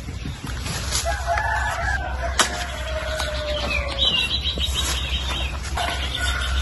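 A rooster crowing in the background, one long call that falls in pitch near its end about a second in, and a small bird's rapid high trill about four seconds in. A single sharp snap sounds midway.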